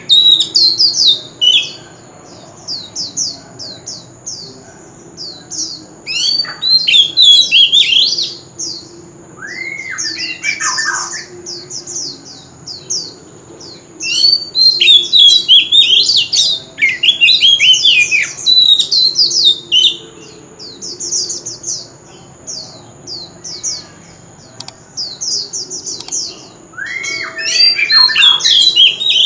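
Oriental magpie-robin singing: loud bouts of rapid, varied whistled and scratchy notes, broken by short pauses.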